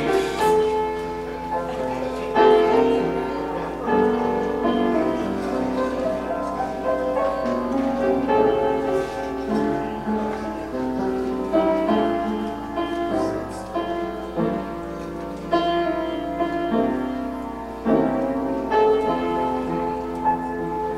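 Keyboard playing slow, sustained chords that change every second or two, with no singing.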